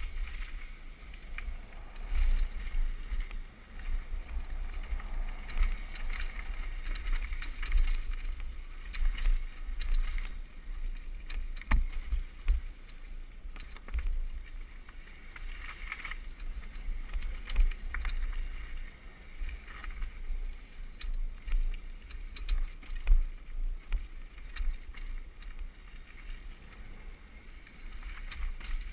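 Downhill mountain bike ridden fast over a dirt trail, heard from an on-board camera: wind buffeting the microphone as a rumble that rises and falls, tyre noise on the dirt, and frequent rattles and sharp knocks from the bike over bumps, the loudest about twelve seconds in.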